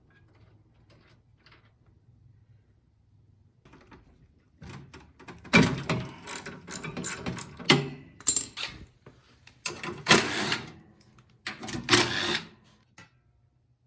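Hand tools clattering and clicking against the metal of a snowblower during servicing, in several loud runs of quick mechanical clicks from about five seconds in until near the end.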